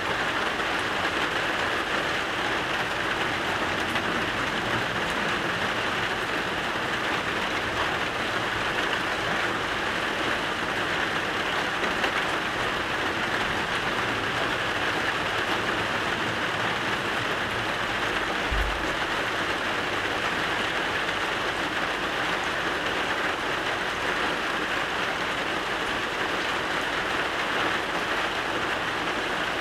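Steady rain falling, an even hiss with no let-up. One brief low thump about two-thirds of the way through.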